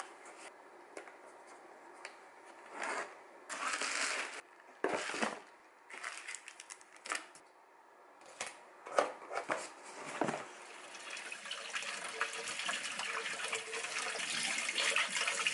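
Short rustles and scrapes of paper and cardboard being handled, including a box cutter slitting the packing tape on a cardboard box. Then a kitchen tap runs steadily onto bean sprouts in a mesh strainer for the last few seconds.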